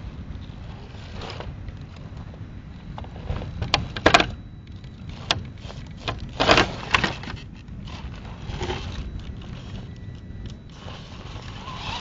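Radio-controlled SCX10 rock crawler climbing over beach rock, its small electric motor and geared drivetrain whining faintly under load. Sharp knocks and scrapes come about four seconds in and again around six to seven seconds as the tyres and chassis hit the rock, over a steady low rumble.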